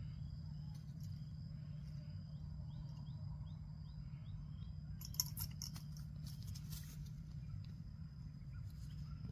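Outdoor ambience: a steady low rumble with a small bird chirping faintly, short notes about twice a second for a few seconds, then a few sharp clicks about five seconds in.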